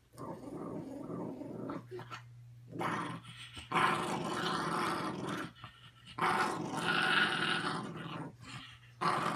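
Small dog growling in several long stretches with short breaks between, warning off a person's hands reaching for its chew stick: resource guarding.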